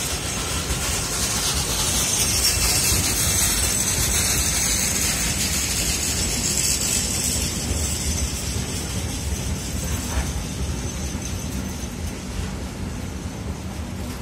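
Freight train of tank wagons rolling past: steady rumble of steel wheels on the rails, with a thin high squeal over it that is loudest in the first half and fades later.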